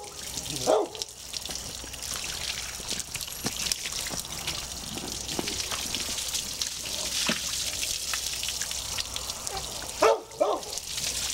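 Garden hose spraying water over a gutted pig carcass on a table, a steady hiss and spatter. Three short, loud calls cut through it, one about a second in and two close together near the end.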